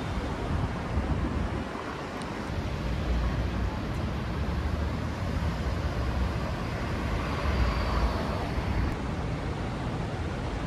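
City street traffic: cars running along a multi-lane road, heard as a steady wash of noise, with wind rumbling on the microphone.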